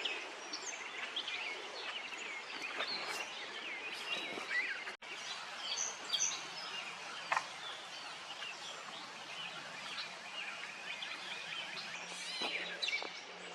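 Small birds chirping and twittering, many short calls, over a steady outdoor hiss. The sound cuts out for an instant about five seconds in.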